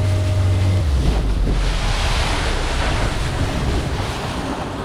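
Boat engine cut by its kill switch at speed: the steady engine tone drops away about a second in. Wind on the microphone and water splashing carry on as the boat slows.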